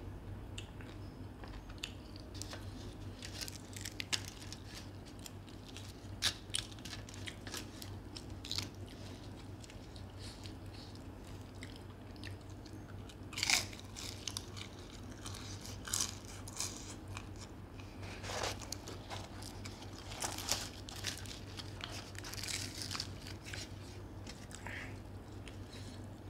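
Close-up mouth sounds of a man eating chicken curry and puri by hand: irregular chewing, lip smacks and bites, the loudest bite about halfway through, over a low steady hum.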